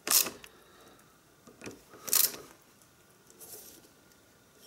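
Socket ratchet clicking in two short bursts about two seconds apart, with fainter clicks between, as the bolt holding the exhaust silencer to its frame bracket is tightened.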